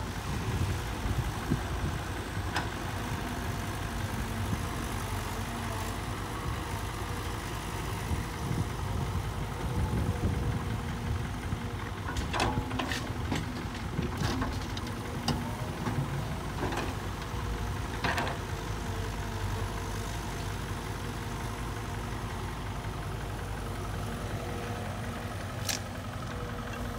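Caterpillar 312 hydraulic excavator's diesel engine running steadily as it digs and swings, with sharp clanks and knocks between about 12 and 18 seconds in as the bucket dumps laterite soil into the steel bed of a dump truck.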